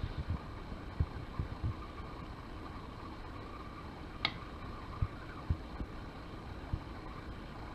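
Soft, irregular low thuds as shredded kataifi dough is pressed down into a ceramic pie dish with a silicone spatula, with one sharp click about four seconds in, over a steady faint hum.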